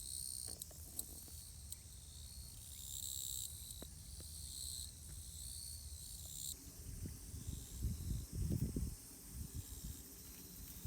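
High, steady insect chirping that starts and stops in stretches, with a few low rumbling knocks about two-thirds of the way through.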